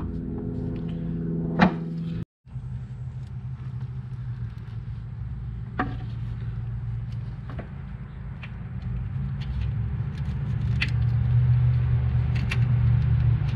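A steady low rumble that drops out for a moment about two seconds in and grows louder toward the end, with a few light clicks of metal brake-line fittings being handled.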